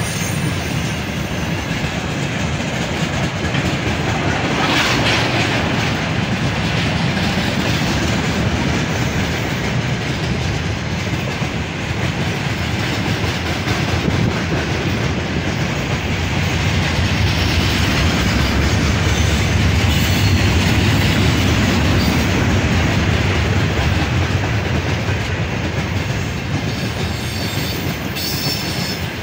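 Freight train of tank cars rolling past at speed, the wagon wheels clattering steadily over the rail joints, loudest a little past the middle.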